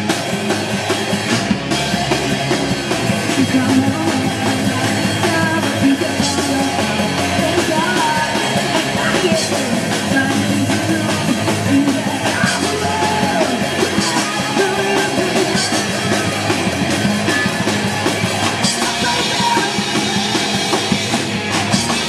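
Loud punk-style rock music with a singing voice and a drum kit.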